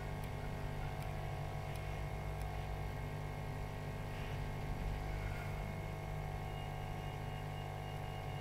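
Steady low electrical hum, with a few faint small ticks over it.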